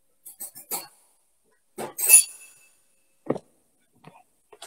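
A few light clicks, then a sharp metallic clink that rings briefly about two seconds in, and a dull knock about a second later: kitchen utensils knocking against a stainless steel pot.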